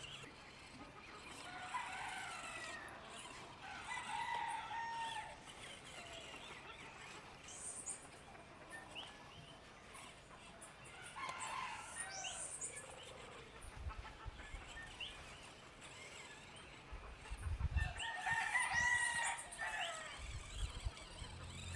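A rooster crowing several times, with chickens clucking and smaller birds chirping higher up. Some low thumps come in near the end.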